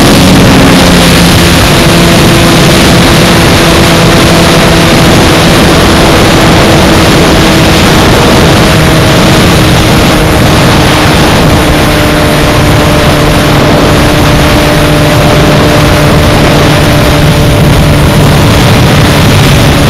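Heavy wind noise on a motorcycle-mounted camera's microphone at highway speed, with a Suzuki Hayabusa's inline-four engine running steadily underneath, its tone easing slightly lower.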